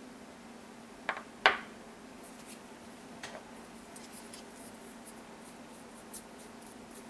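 Small handling noises: two sharp clicks about a second in, the second louder, a fainter click a little later, then a run of light ticking and scraping, over a steady low hum.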